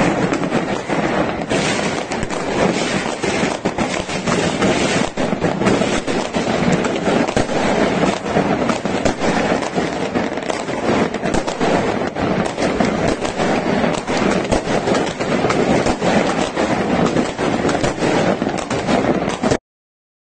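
Fireworks and firecrackers going off across a city, many at once: a dense, continuous crackle of overlapping bangs with no gaps between explosions. The sound cuts off suddenly near the end.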